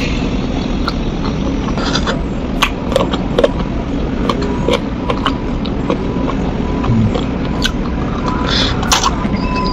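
A person eating spicy chicken feet with her fingers, chewing and picking the skin off the bones: scattered wet clicks and smacks, over a steady low rumble.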